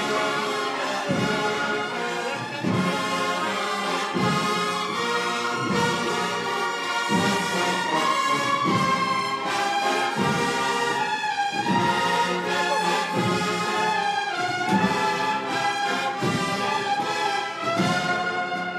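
A brass band plays a slow processional march, with sustained brass chords over a steady, slow drum beat.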